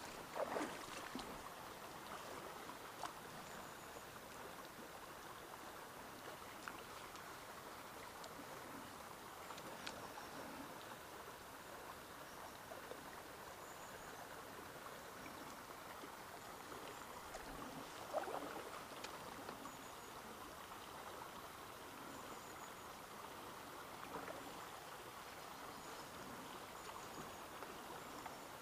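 Shallow river running over rocks in a riffle: a faint, steady rush of water, with a few soft knocks and, now and then, a faint high chirp.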